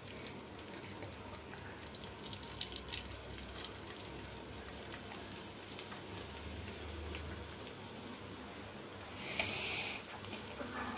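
Beaten egg being poured into coconut-shell halves on a hot iron griddle, with a quiet steady hiss. About nine seconds in comes a brief louder sizzle, as egg spilled onto the griddle cooks.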